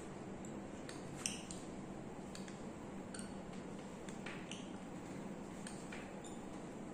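Steady low hum with scattered faint light clicks, one sharper click about a second in.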